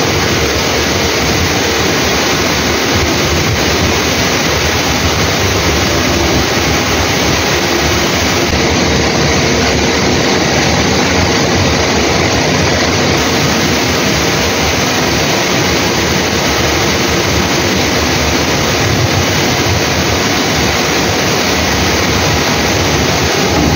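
Steady, loud ship's machinery noise: an even rushing hum with a faint steady tone in it, unbroken throughout.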